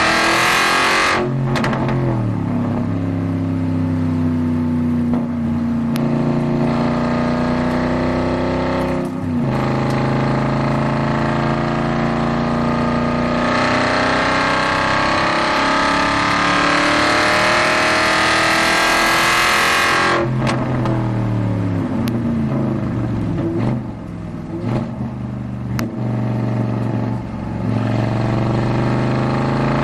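Aston Martin V8 Vantage GT4 race car's V8 engine heard from inside the cabin, pulling hard through the gears. The pitch drops on upshifts about a second in and about nine seconds in, then climbs on a long pull. At about twenty seconds the pitch falls away as the car brakes and downshifts for a corner, before it picks up again near the end.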